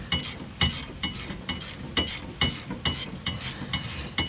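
Hand ratchet clicking in repeated strokes, about two a second, while turning the nut on a stabilizer (sway bar) link. The link's ball stud is spinning with the nut, so the nut is not coming loose.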